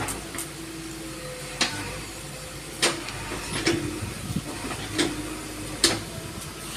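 JCB 3DX backhoe loader's diesel engine running under load while the backhoe arm digs, with a steady hum and five sharp knocks from the arm and bucket, about one a second.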